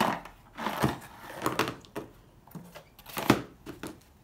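Handling of a rolled paper planner and a tall cardboard box: a few short knocks and rustles of paper and cardboard, the loudest a sharp knock about three seconds in.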